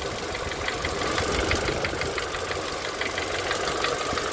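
Renault Megane II's K4M 1.6-litre 16-valve four-cylinder petrol engine idling warm, with a fast, regular knock from the bottom end, heard clearly from underneath around cylinders 3 and 4. The knock comes only at hot idle, and the owner suspects the connecting-rod bearings.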